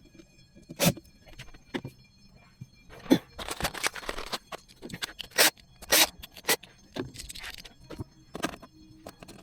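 Objects being handled: a series of sharp knocks and clicks, with a longer stretch of scraping about three seconds in and a shorter one about seven seconds in.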